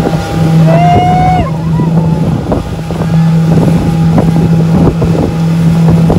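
Motorboat engine running steadily under way, with wind on the microphone and repeated short thumps. A brief high-pitched shout about a second in.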